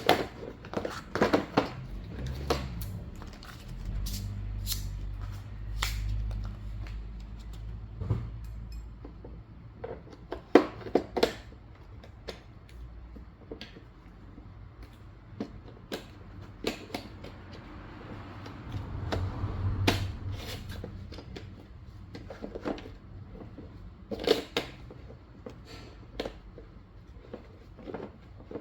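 Parts of a folding cart being handled and fitted together by hand: scattered clicks, knocks and rattles, with low rumbling from about four to seven seconds in and again around twenty seconds.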